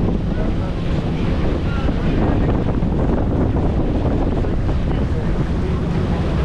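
Wind rushing over the microphone on a moving boat, with the boat's engine running steadily underneath and the wash of water.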